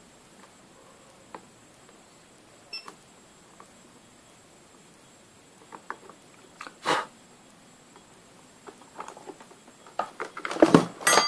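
A digital multimeter's continuity beeper gives one short high beep as its probes touch the amplifier board, about three seconds in. A clatter of knocks follows at about seven seconds and again, louder, near the end, as the probes and board are handled and put down.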